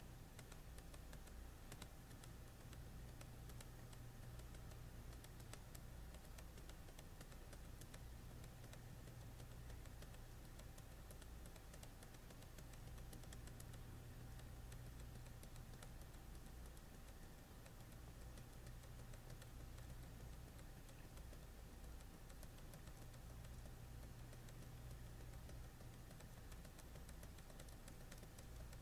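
Faint, quick, uneven clicking from scrolling a list on a computer, over a steady low hum.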